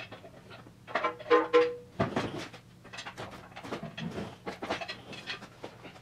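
Irregular metal clanks and knocks as a Mazda 5's manual transmission is worked loose during removal, with a brief high squeak about a second in.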